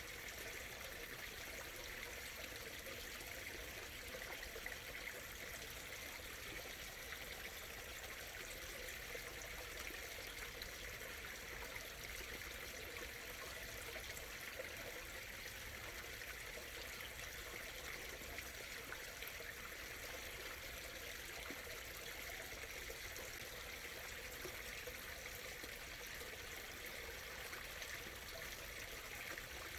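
Small stream flowing steadily over stones, a soft, even murmuring and trickling of water.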